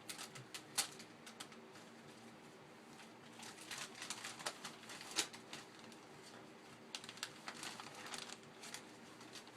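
Scattered light clicks, taps and crinkles of a present and its packaging being handled, irregular and at no steady rhythm.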